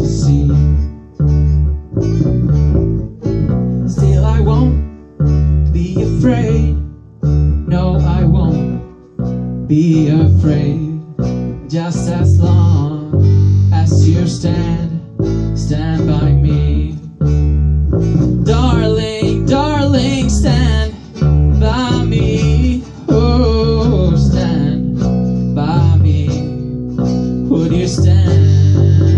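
Live acoustic guitar strumming a song, with singing over it.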